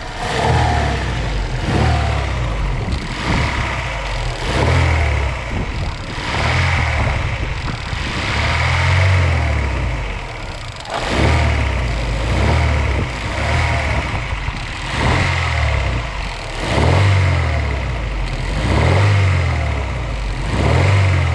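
Daewoo Lanos petrol engine, warmed up and running on LPG, with its speed rising and falling about every two seconds and a knock from the bottom end. The mechanic takes the knock for a worn crankshaft main bearing rather than a connecting-rod bearing.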